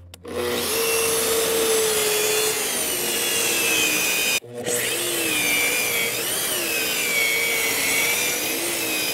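Track saw, a plunge circular saw on a guide rail, running and cutting a roughly 30-degree bevel through wooden decking boards, with a wavering whine over the noise of the blade in the wood. It starts just after the beginning, cuts off sharply for a moment about halfway, then runs on to the end.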